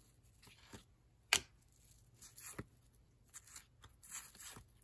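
Paper-stock baseball cards being flipped through by hand, each card sliding off the stack with a short soft rustle, and one sharp card click about a second in.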